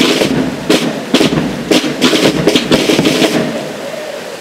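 Military band's drums and cymbals beating out a march, with sharp crashing strokes about twice a second over a low, steady band of sound. They stop about three and a half seconds in.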